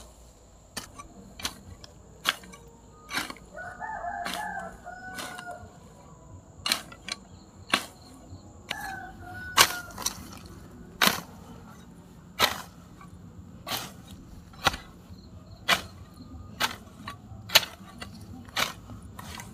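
Repeated sharp blows of a hand tool on bamboo, roughly one a second. A rooster calls twice between them, and a steady high insect drone runs underneath.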